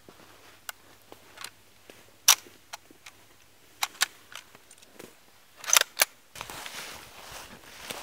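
Metallic clicks and clacks of a Mosin-Nagant bolt-action rifle being loaded, cartridges pressed down from a stripper clip into the magazine and the bolt worked, the loudest clacks about two seconds in and just before six seconds. From about six seconds in, footsteps rustle through dry fallen leaves.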